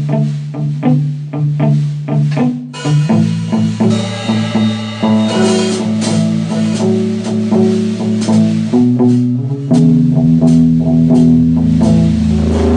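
Guitar playing a slow blues riff. About ten seconds in, a loud, steady low drone sets in and holds: microphone feedback.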